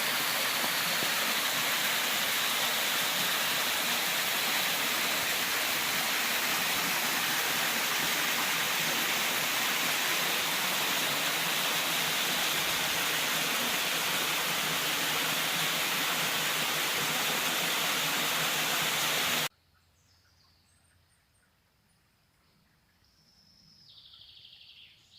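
Loud, steady rush of a waterfall that cuts off suddenly about three-quarters of the way in. Quiet follows, with faint bird calls, one of them a falling call near the end.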